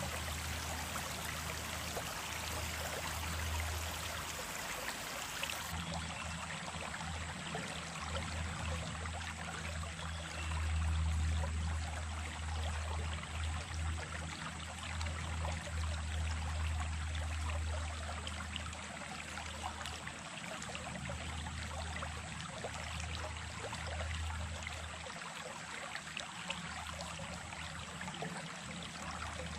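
Small stream of running water flowing and trickling steadily, with a low rumble that swells and dips underneath.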